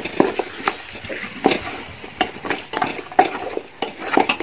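Wooden spatula knocking and scraping against an aluminium pot while stirring and turning chicken pieces in onion masala, in irregular knocks about two or three a second.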